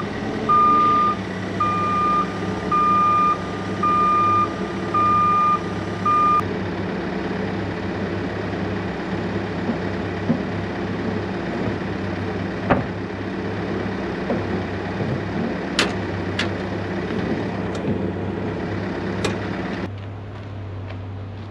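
A heavy vehicle's reversing alarm beeping about once a second, stopping about six seconds in, over a steadily running engine. A few sharp knocks come in the second half.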